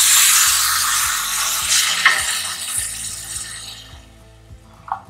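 Water poured into a hot aluminium pressure cooker of rice and moong dal roasted in ghee, sizzling loudly at first and dying away over about four seconds, with a couple of light knocks near the end.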